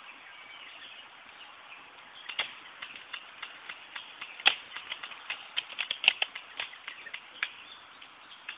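Scattered sharp clicks and snaps from firing and handling an airsoft sniper rifle, starting about two seconds in, with a few louder snaps among many lighter clicks.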